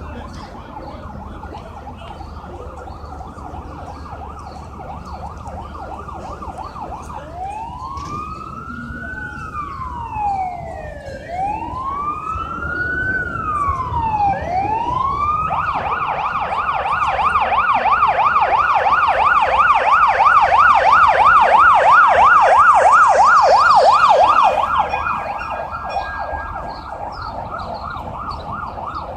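Ambulance siren in fast yelp mode, switching about seven seconds in to a slow rising-and-falling wail for a few cycles, then back to a fast yelp of about three sweeps a second. It grows louder as the ambulance approaches and fades near the end as it passes.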